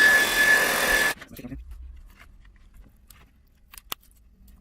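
A hot-air blower runs with a steady whine over a hiss of air, softening the glued-on laptop screen's adhesive, and switches off abruptly about a second in. A few faint clicks and taps follow.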